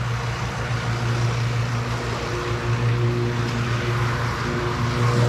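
John Deere compact tractor's diesel engine idling steadily.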